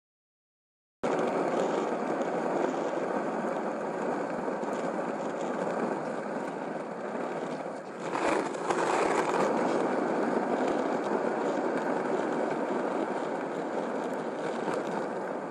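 Skateboard wheels rolling on concrete, a steady grinding rumble that starts suddenly about a second in and swells for a moment a little past the middle.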